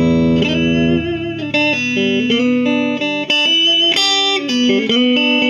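Squier Classic Vibe '50s Duo-Sonic electric guitar playing a blues fill between sung lines: a held chord, then single-note phrases with bends and vibrato.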